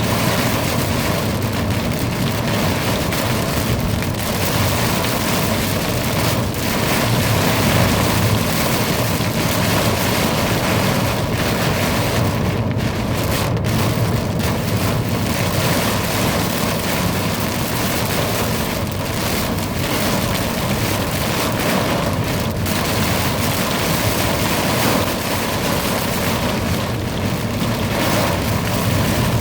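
Heavy thunderstorm downpour: torrential rain pouring steadily at a loud, even level.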